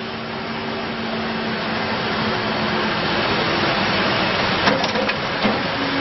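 Diesel engine of a Case 580N backhoe loader running, getting louder over the first few seconds while the front loader raises its bucket, with two short sharp knocks near the end.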